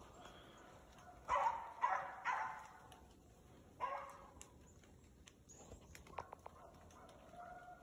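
Deer-hunting hound barking while running a deer: three barks in quick succession about a second in, then one more a little later.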